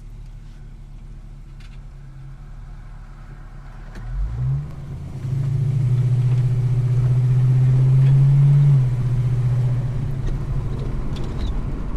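Car engine running quietly at first, then accelerating about four seconds in: the engine note rises, then holds loud and steady for a few seconds before easing off a little near nine seconds.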